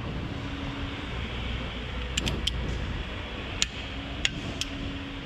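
Several sharp metallic clicks in two small groups, about two seconds in and again near the end, from a torque wrench being worked on cylinder head bolts, over a steady workshop hum.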